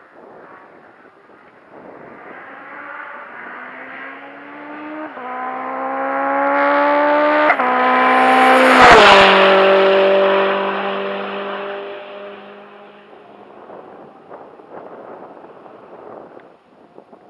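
A time attack race car's engine at hard throttle approaching, its pitch climbing with two brief drops as it changes up a gear. It passes loudest about nine seconds in, the pitch falling sharply as it goes by, then fades away.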